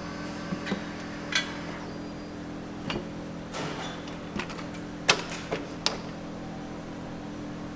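A tire being handled and its bead worked onto a wheel on a tire-changing machine: scattered knocks, clicks and rubbing, the sharpest knock about five seconds in, over a steady background hum.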